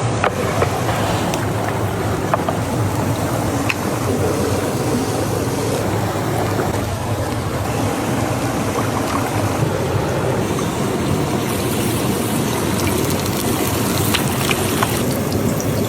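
Chicken frying in hot oil: a steady sizzle with a few sharp crackles.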